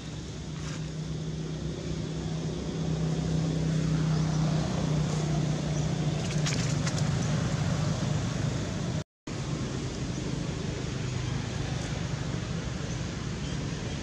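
Engine running steadily with a low hum, growing louder over the first few seconds and then holding level. The sound cuts out for a split second about two-thirds of the way through.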